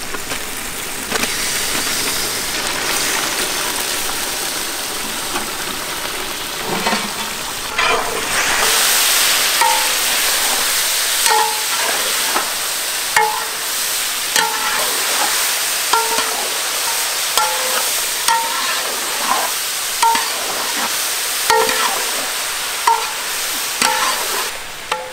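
Raw meat chunks sizzling in hot oil among golden-fried onions in a large metal cooking pot, the sizzle growing louder about eight seconds in. A metal ladle stirs the meat, scraping and clinking against the pot every second or two.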